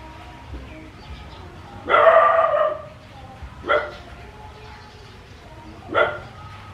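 A dog barking three times: a drawn-out first bark about two seconds in, which is the loudest, then two short barks about two seconds apart.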